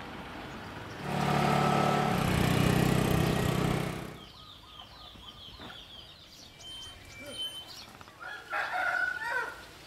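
A small motor scooter's engine runs close by for about three seconds, then fades. Near the end a rooster crows, with a few short bird chirps before it.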